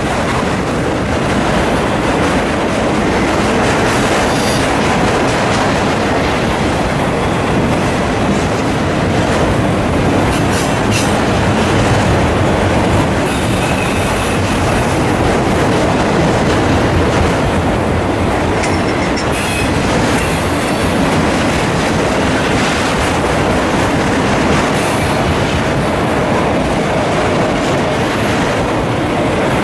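Long freight train of autorack cars rolling past at steady speed: a continuous rumble of wheels with clickety-clack over rail joints, and a faint wheel squeal near the middle.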